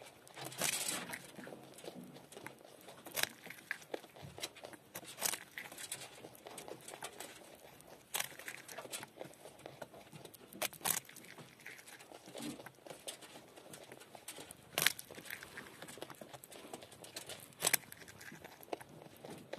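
Nutria gnawing and chewing a raw carrot close up: a steady run of small crisp crunches, with louder sharp bites every few seconds.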